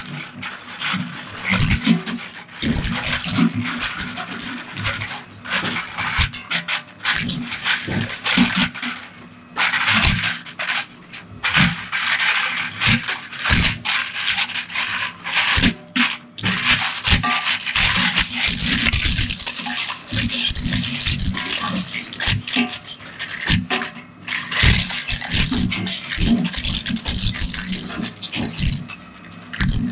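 A twin-shaft shredder's interlocking steel cutter blades crunching and cracking a hard plastic toy, with a dense run of irregular snaps and rattling fragments over a steady low hum.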